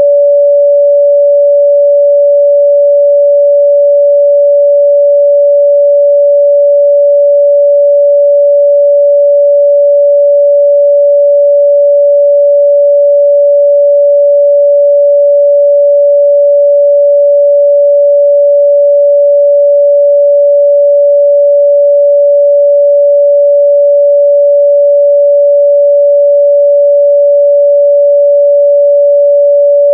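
A pure 574 Hz sine-wave test tone, held perfectly steady and loud with no change in pitch or level.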